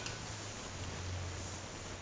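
Thick chili sambal simmering in a stainless steel pot: a steady bubbling hiss, with a single click right at the start as the wooden spatula knocks the pot, and a low hum that swells about a second in.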